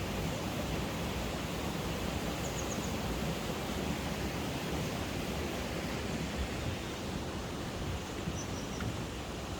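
Steady rushing of a mountain valley stream, with a few faint, short high chirps about two and a half seconds in and again near the end.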